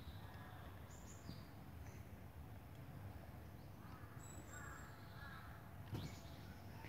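Faint birdsong in the trees: scattered short high chirps and a few harsher calls. About six seconds in there is a single sharp knock.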